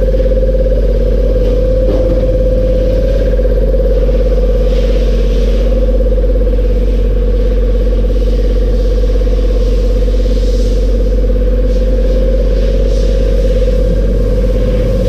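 Air compressor running steadily, a loud, even drone with a deep hum and a constant mid-pitched tone.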